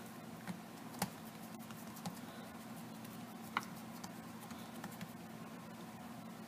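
Faint soft pats and a few light clicks of fingers pressing oiled dough flat on a wooden board, over a low steady hum.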